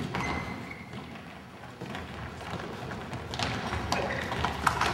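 Futsal players on a wooden gym floor: running footsteps, sneaker squeaks and thuds of the ball being kicked, echoing in the hall. The knocks come thicker and louder in the last second and a half.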